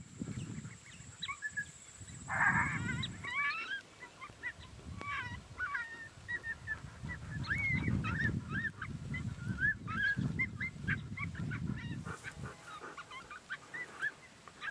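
A group of coyotes yipping and barking in a rapid, ragged run of short high calls, with a denser outburst a couple of seconds in. A low rumble of wind on the microphone comes and goes under the calls.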